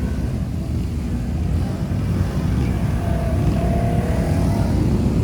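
Can-Am Outlander ATV engine running while riding, a steady low rumble that grows slightly louder toward the end.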